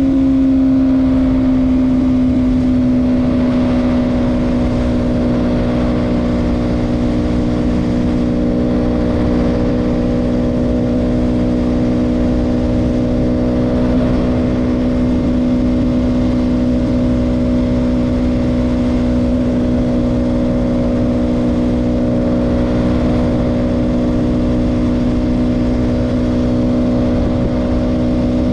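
KTM Duke 200's single-cylinder engine at a steady cruise, its note easing slightly lower in the first few seconds and then holding even.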